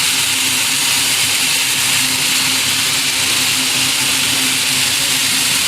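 Sawmill machinery running steadily: an even, loud hiss with a low hum underneath that holds without a break.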